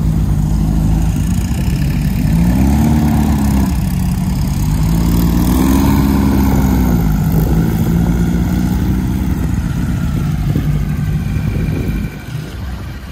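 Dune buggy engines running at low speed as the buggies drive slowly past, the engine note rising and falling in two brief revs, the first about two and a half seconds in and the second about five to seven seconds in. The sound grows quieter about a second before the end.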